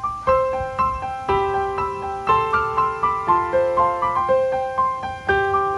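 Background piano music: a melody of single struck notes, about two a second, over held lower notes.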